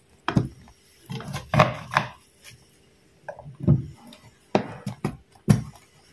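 Spoon scooping sticky, Nestum-coated biscuit pieces from a mixing pan and dropping them into a paper-lined metal cake tin: a string of irregular soft knocks and scrapes.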